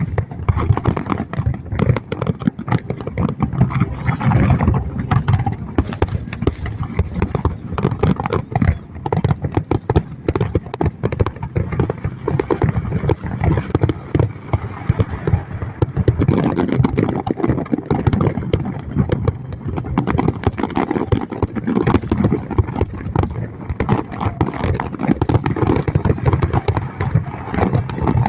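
Fireworks going off in a dense, unbroken volley of rapid bangs and crackles over a low rumble.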